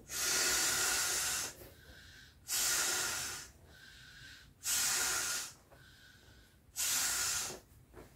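Air blown by mouth into the valve of an Intex Wave Rider GP500 inflatable jet ski: four long puffs of rushing air about two seconds apart, topping up the soft, deflated inflatable.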